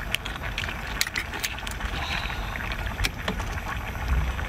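Cooked crab being pried open by hand, its shell giving a few sharp cracks and clicks, over a steady low rumble.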